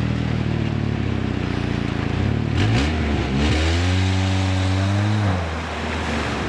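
Jeep Wrangler engine running, then revved hard about two and a half seconds in. It holds high revs for a few seconds and drops back, with the tyres churning and spraying creek water in an attempted burnout.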